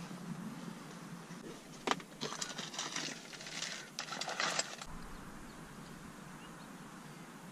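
Faint clattering and rustling of gear being handled: a cluster of sharp clicks over about three seconds, followed by a low steady rumble.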